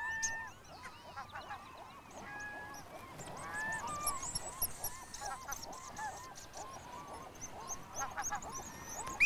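Seabird colony calling: many short calls overlapping, with high thin whistles mixed in and one sharper, louder call at the very end.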